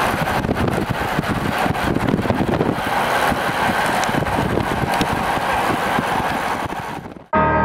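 Steady rush of engine, tyre and wind noise from a moving car pacing a cyclist, which fades out sharply near the end. Held, bell-like music tones come in just as it stops.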